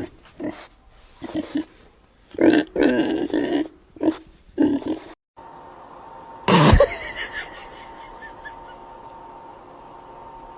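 A farm animal making a series of short grunting calls in bursts over the first five seconds. A sudden loud knock comes about six and a half seconds in, followed by a steady low background hum.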